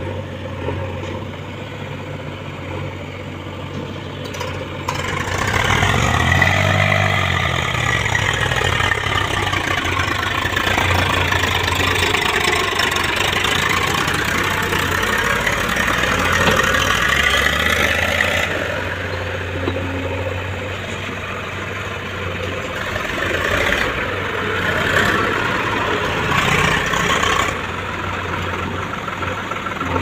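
Diesel engines of a JCB 3DX backhoe loader and a tractor running steadily. The sound grows louder about five seconds in, where the revs rise and fall once.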